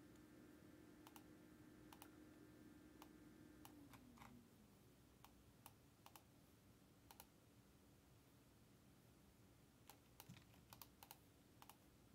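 Faint, irregular keystroke clicks of someone typing on a computer keyboard. A faint low hum sinks in pitch and fades out about four seconds in.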